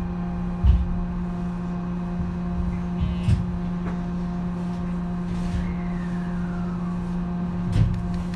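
JR West 223 series 3000 electric train standing at the platform, giving off a steady electrical hum with several even tones. A few short low knocks come about a second in, around three seconds in and near the end, and a faint falling tone passes in the middle.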